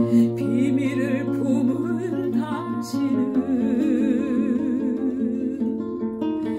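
A woman singing a slow, sad ballad with a wide vibrato, accompanied by a nylon-string classical guitar; the guitar's chord changes about three seconds in.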